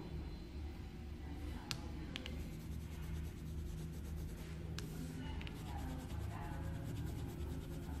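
Colored pencil scratching on paper in back-and-forth shading strokes, denser from about halfway through, with a few light taps of the pencil earlier, over a steady low hum.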